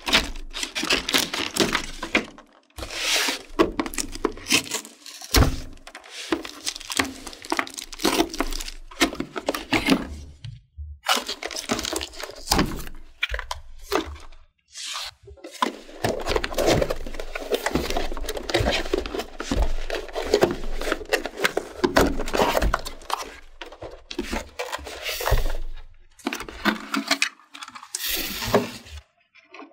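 Clear plastic blister packaging and cardboard crinkling and crackling as a toy doctor playset is handled and unpacked, with small plastic clicks and knocks. The crackling comes in irregular spells with a few short pauses.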